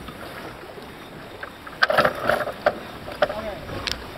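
Steady wind and water noise aboard a Farr 30 racing keelboat under sail. A cluster of sharp clicks and knocks comes about two seconds in, with brief crew voices.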